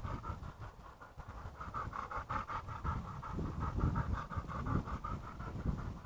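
A dog panting quickly and rhythmically, over a low rumble.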